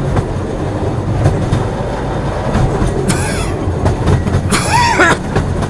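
Inside a moving train carriage: the steady rumble of the train running, with the clack of wheels over rail joints. A person coughs twice over it, about three seconds in and again, longer, about four and a half seconds in.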